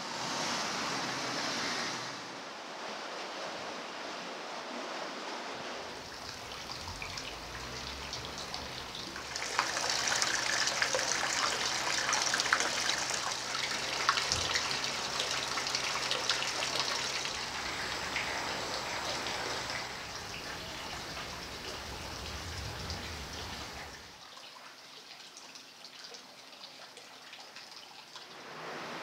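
Spring water pouring in a thin stream from a stone basin's spout and splashing into the channel below, a trickle that is loudest through the middle. Quieter flowing water before and after, dropping lower about four-fifths of the way through.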